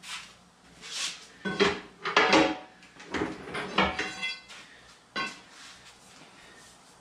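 Metal clanks, knocks and scrapes as a wheeled engine dolly carrying an engine and K-member is worked across a wide concrete floor expansion joint with a long steel bar. The loudest knocks come about two seconds in, with a short metallic ring about four seconds in and a last knock a second later.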